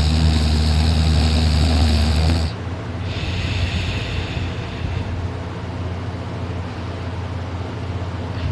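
A sleeping man snoring: one loud, rasping snore lasting about two and a half seconds, followed a moment later by a softer, breathy snore.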